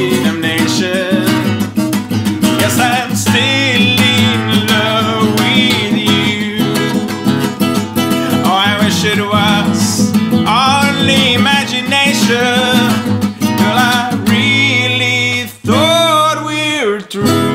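A man singing long, gliding held notes without clear words, accompanied by an acoustic guitar.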